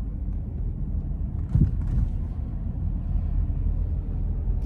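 Steady low road and engine rumble inside a moving car's cabin, with a single dull thump about a second and a half in, like the car going over a bump.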